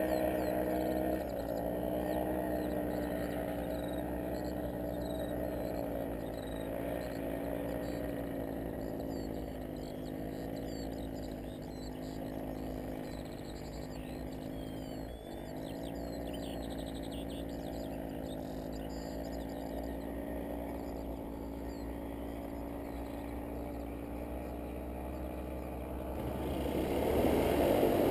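Two-seat paramotor trike's engine and propeller droning steadily in flight, its pitch wavering slightly as the throttle changes. It grows louder near the end as the trike comes closer.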